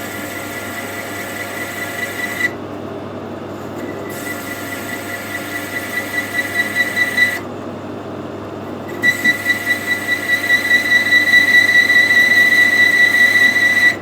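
High-speed-steel parting tool squealing as it cuts into work spinning in a metal lathe, a high whistling tone that pulses rhythmically and gets louder toward the end. The squeal stops twice for a second or two while the lathe keeps running.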